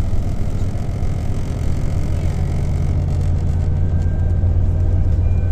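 Scania Citywide city bus's nine-litre five-cylinder engine running with a steady low drone. A faint high whine joins in about three seconds in.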